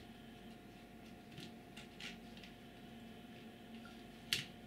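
Faint clicks of small acrylic and metal clamp parts being handled and fitted by hand, with a sharper click near the end, over a steady faint hum.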